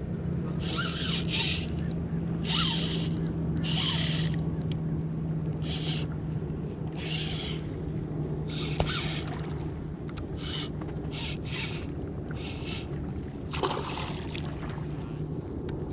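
Fishing reel working against a hooked striped bass: short irregular runs of reel noise as line is cranked in and given out during the fight. A steady low hum runs underneath.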